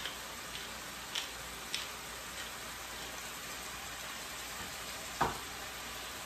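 Onions, carrots and tomatoes sizzling steadily in oil in a stainless steel sauté pan. A few light clicks come in the first two seconds, and a single knock about five seconds in.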